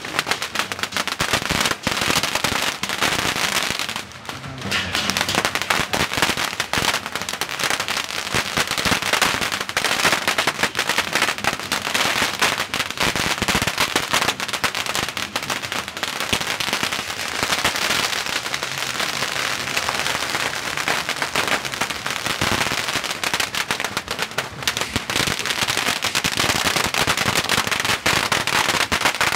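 Strings of Chinese firecrackers going off in a rapid, continuous crackle of bangs, with a short lull about four seconds in.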